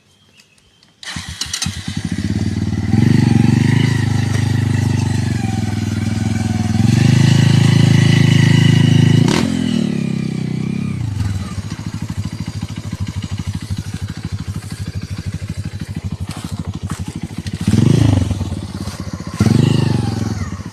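Motorcycle engine starting about a second in, revved up twice, then settling to a steady idle, with two short blips of throttle near the end.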